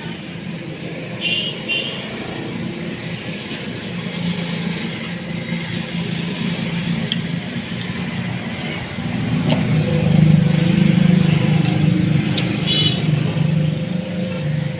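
A steady engine-like rumble, like road traffic or a vehicle running, that swells louder about nine seconds in, with a few faint clicks.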